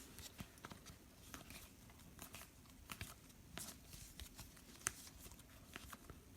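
Faint handling of trading cards: light rustles and scattered small clicks, with one sharper click about five seconds in.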